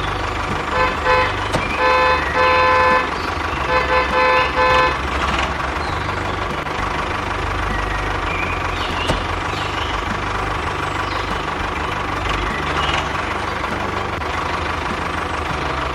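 Vehicle horn honking repeatedly, about eight short toots in two groups over the first five seconds, over steady engine and road noise that carries on after.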